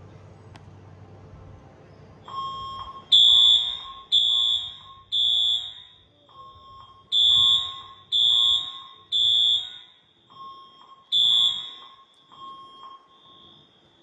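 Smoke alarm sounding its evacuation signal: loud, high-pitched beeps in groups of three with a pause between groups (the temporal-three pattern), starting about two seconds in. A second, quieter alarm tone sounds in the gaps.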